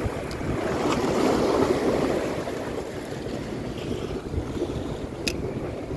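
Sea waves washing and splashing against breakwater rocks, with wind buffeting the microphone. A single sharp click sounds about five seconds in.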